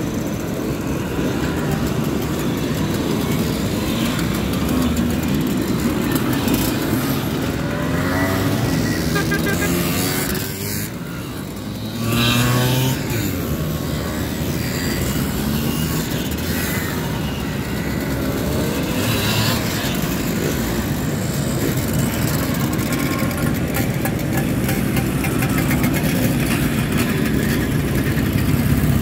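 A column of two-stroke Simson mopeds and small motorcycles riding past one after another, engines buzzing and revving, each one's pitch rising and falling as it passes. A little quieter about ten seconds in, then one machine goes by louder just after.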